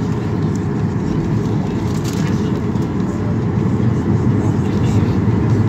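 Cabin noise of a Boeing 737-800 taxiing with its CFM56-7B engines near idle: a steady low rumble that grows a little louder about halfway through.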